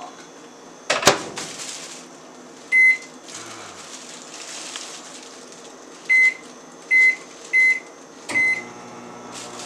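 Microwave oven keypad beeping: one short high beep, then four more a little later. After the last beep the oven starts running with a steady low hum. A thud about a second in is louder than the hum.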